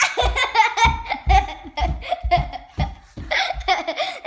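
A young child laughing hard in many short bursts, with low thumps about twice a second underneath.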